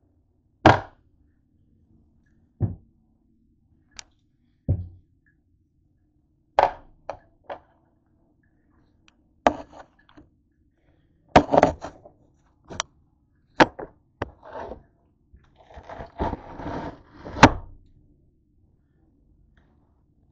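Head of green cabbage being pulled apart and cut on a cutting board: irregular sharp cracks and thunks as leaves snap off and the cabbage knocks on the board, then a denser crunching run near the end as the knife cuts into the head.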